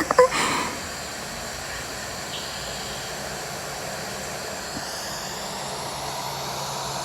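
Steady rushing noise with no distinct events. A faint low hum joins about five and a half seconds in.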